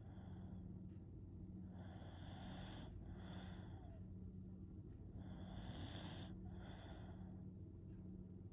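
Shiba Inu snoring, with airy, hissing breaths. Two snore cycles, each a long breath followed by a shorter one, come about every three and a half seconds over a steady low hum.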